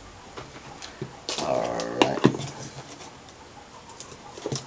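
Light clicks from handling a small LED driver board and its wires, with a short pitched whine lasting under a second about a second and a half in.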